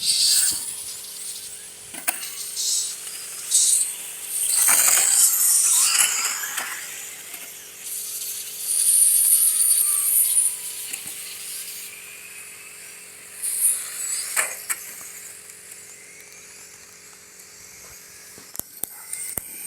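Radio-controlled racing cars speeding past on the track, their motors giving a high-pitched whine that swells and fades in several passes, with a few sharp knocks between.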